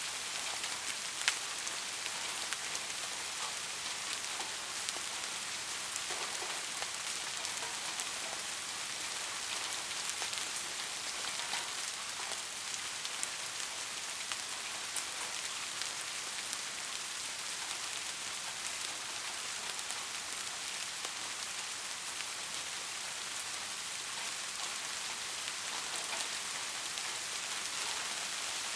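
Steady rain falling and pattering on a surface, a continuous even hiss with scattered individual drop ticks, one sharper drop about a second in.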